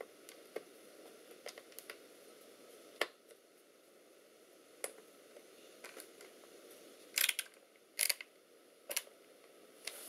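A small screwdriver turning a screw back into a laptop's bottom case, giving scattered light clicks and ticks, with three louder clicks about seven, eight and nine seconds in.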